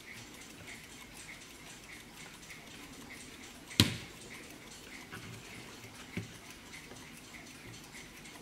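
Warmink Dutch mantel clock ticking steadily and softly, with a sharp knock about four seconds in and a lighter one about two seconds later as the clock is turned by its handle.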